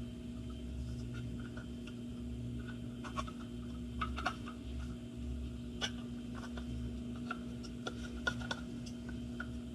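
Light, scattered clicks and taps of the small plastic parts of a tachometer gauge being handled and pushed into its housing, with a few sharper clicks about four and six seconds in, over a steady low hum.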